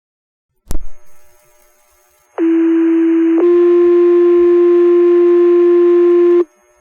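Fire dispatch two-tone sequential paging tones over the radio: a short key-up click, then one steady tone for about a second followed by a slightly higher tone held for about three seconds. This is the tone-out that sets off the volunteer firefighters' pagers before the voice page.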